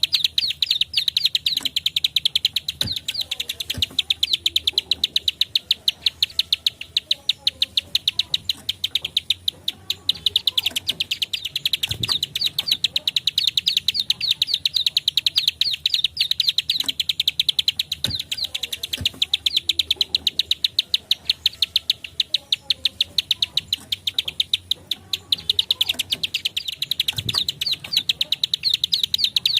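Prenjak klik (ciblek sawah), a small prinia, giving a rapid, continuous series of sharp high clicking notes, several a second, with only brief pauses: its fast 'klik-klik' song, used to draw out and stir up other birds of its kind.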